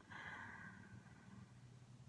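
Near silence, with a faint breathy exhale in the first second.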